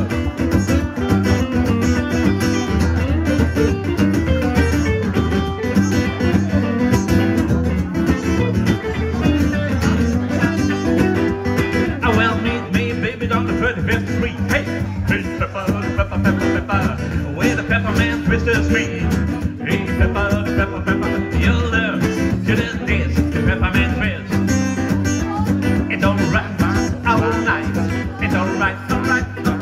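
Live guitar duo playing a song: a strummed steel-string acoustic guitar and an archtop electric guitar through a small amp, with a man singing.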